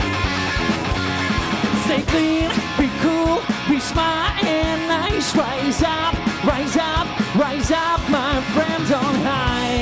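Live heavy-funk rock band with electric guitar, bass and drums playing a steady beat. A male vocalist comes in singing about two seconds in.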